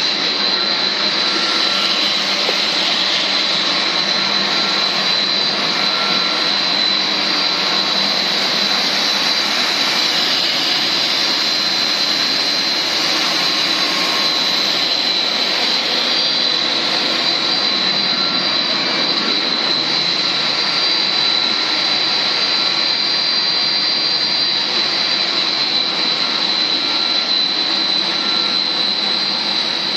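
PVC trunking extrusion line running: a steady, loud machinery noise with a constant high whine.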